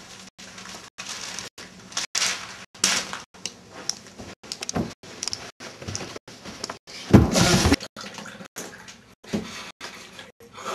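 Household noises played backwards: scattered swelling rustles and knocks, cut by brief regular dropouts about twice a second, the loudest a low rumbling noise about seven seconds in.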